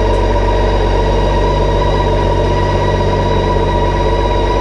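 BMW K1600B's inline-six engine running steadily at low revs as the motorcycle rolls slowly away.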